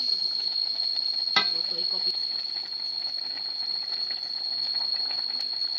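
Chicken frying in a pan over a wood fire, sizzling steadily, with a steady high-pitched whine throughout and a single click about a second and a half in.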